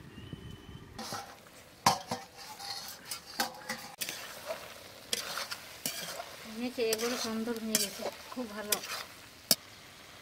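A metal spatula stirs and scrapes goat intestine and potato curry in a kadai while the masala sizzles, with sharp clinks of the spatula against the pan. The sizzle starts about a second in, and a brief wavering pitched sound comes in the second half.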